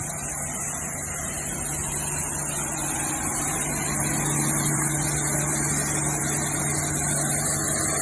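A motor running steadily with a constant low hum under a hiss, growing a little louder about three seconds in.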